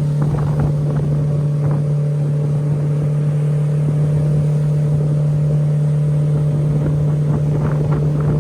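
Boat motor running at a steady speed, an even, unbroken hum.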